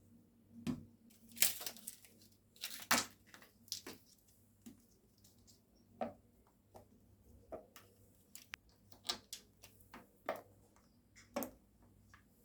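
A dozen or so irregular light clicks and knocks with some rustling, the sounds of small objects being handled in the kitchen.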